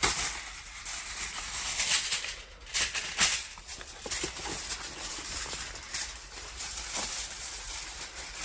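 Aluminium foil being handled and crinkled in irregular rustling bursts, loudest about two and three seconds in.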